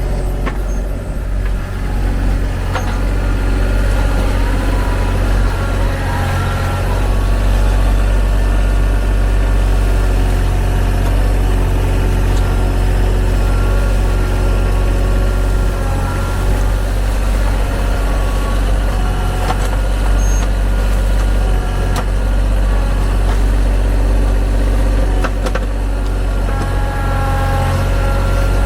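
TYM T313 sub-compact tractor's diesel engine running steadily, with a few sharp clicks now and then.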